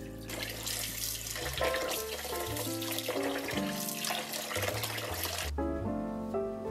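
Kitchen tap running into a plastic bowl of water while raw oysters are swished and rinsed by hand, over background music; the water sound stops about five and a half seconds in.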